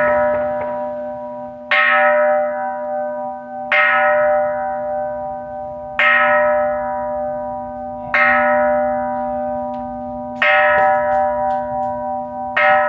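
A hanging Buddhist temple bell struck from below with a long pole, six strikes about every two seconds. Each strike rings on with several steady tones until the next. These are among the 108 strokes rung to see in the new year.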